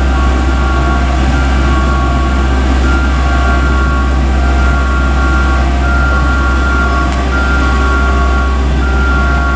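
Ant railcar mover shunting a shinkansen car: a steady low machine drone with a repeating two-note electronic warning tune alternating high and low, about a second per note.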